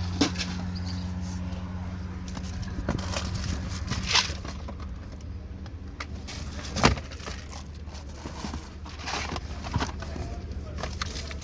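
Items being handled and pulled out of a cardboard box: rustling of packaging with scattered small clicks and one sharp knock about seven seconds in, over a low steady hum.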